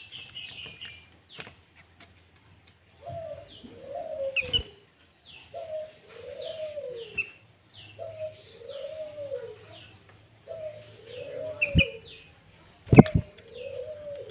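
Birds calling. A low call that rises and falls repeats about every second and a half, over short, high, falling chirps. A few sharp clicks come near the end.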